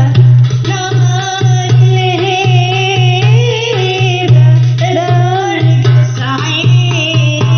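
Tunisian wedding song: singing of an ornamented, winding melody over hand-drum percussion and a strong, pulsing bass line.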